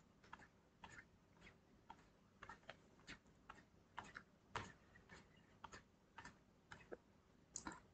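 Faint, irregular clicks at a computer as a text file is scrolled down, roughly two clicks a second.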